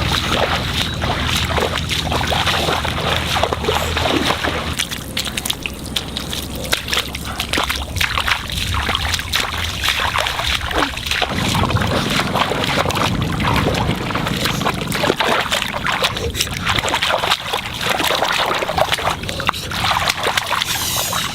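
Water splashing and sloshing continuously, with many small splashes, over a low steady hum.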